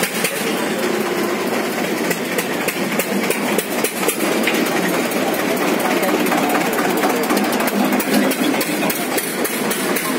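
Busy street noise: an engine running amid a crowd's voices, with many small clicks throughout.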